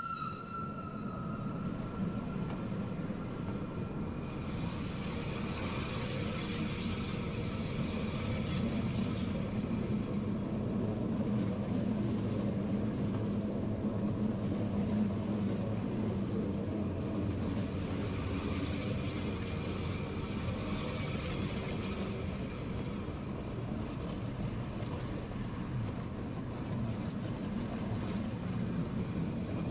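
Rhaetian Railway Capricorn electric multiple-unit train humming steadily, its motors and fans running as it creeps slowly along the platform.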